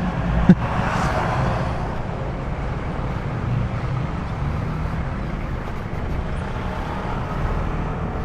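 Motor scooter running at riding speed, heard as a steady engine, road and wind rumble on the action camera's microphone, with a short click about half a second in.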